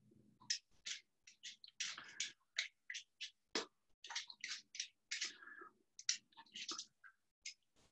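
Vegetable peeler scraping the skin off a piece of fresh ginger root in short, irregular strokes, about two or three a second.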